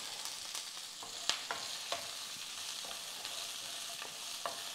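Chopped onions, green chillies and spices sizzling in hot oil in a nonstick wok, stirred with a wooden spatula that scrapes and clicks against the pan a few times. The onions are being fried toward golden brown.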